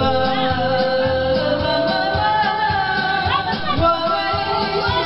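A song playing: a voice singing long held, sliding notes over a steady beat.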